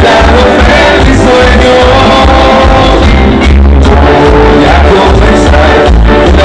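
Loud Latin dance music with a heavy, steady bass beat and singing, played very loud.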